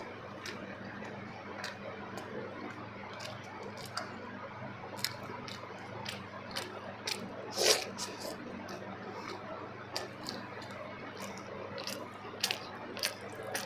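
Close-miked eating sounds: wet chewing and squishy mouth clicks, scattered and irregular, with one louder smack a little past halfway.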